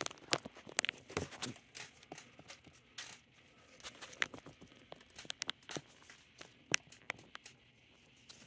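Scattered light clicks, taps and knocks at irregular intervals, the sound of things being handled and shifted about on a table.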